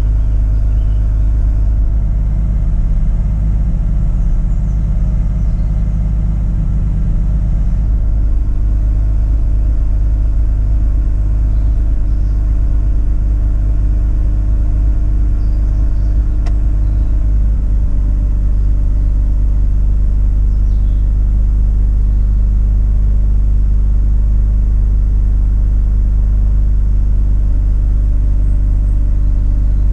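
A 2005 Mazda RX8's twin-rotor Wankel rotary engine idling steadily as it warms up after a cold start, with a slight change in its tone about eighteen seconds in. The engine has a misfire, later traced to wrongly wired injectors; at the high warm-up idle it is not noticeable.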